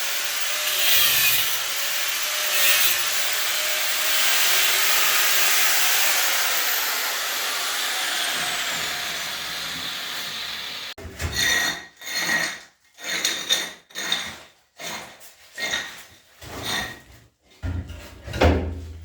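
Tool work during kitchen fitting: a steady, harsh cutting or grinding noise for about eleven seconds stops abruptly. It is followed by rhythmic back-and-forth scraping strokes, about one and a half a second, as of sawing or filing by hand.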